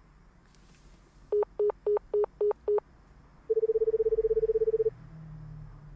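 Call tones from a mobile phone: six quick, evenly spaced beeps, then after a short pause a steady pulsing phone tone held for about a second and a half before it cuts off. This is the line's response to a call to a number that is no longer in service.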